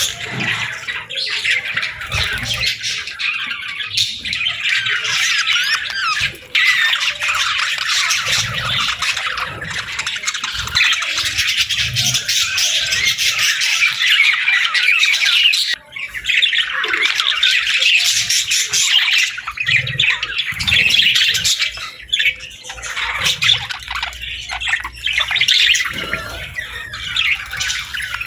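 A flock of budgerigars chattering and chirping nonstop, many high calls overlapping, with two brief lulls, about six and sixteen seconds in.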